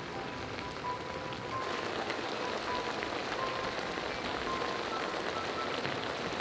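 Beetroot pieces simmering in a wok over a wood fire: a steady, dense crackle of small bubbling and sizzling pops.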